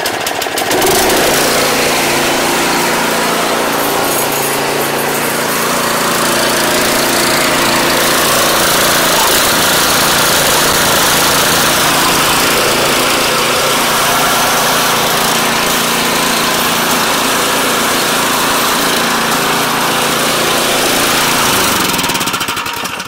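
Snowblower's 208cc single-cylinder engine, pull-started on choke, catching on the first pull and running steadily, then shut off near the end.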